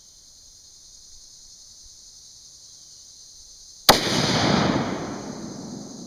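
A single .30-06 rifle shot fired while sighting in the scope, about four seconds in: a sharp crack followed by a long echo that fades over about two seconds. Insects chirr steadily throughout.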